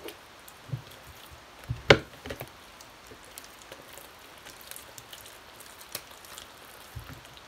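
Slime being kneaded and stretched by hand in a plastic tub: scattered wet squishes and sticky pops, the loudest about two seconds in.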